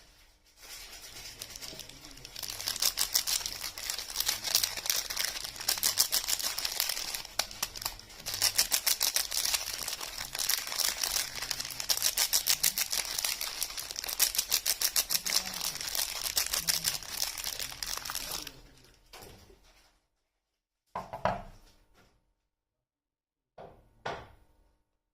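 Soap bar packaging being torn open and crinkled by hand: a dense, fast crackling that runs for about eighteen seconds, then two brief rustles near the end.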